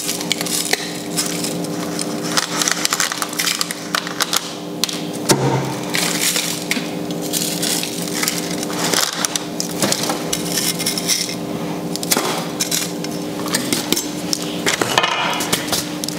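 A large kitchen knife scraping a hardened salt crust off roasted pork belly skin: repeated rasping scrapes with crunchy cracking as the crust breaks away. A steady low hum runs underneath.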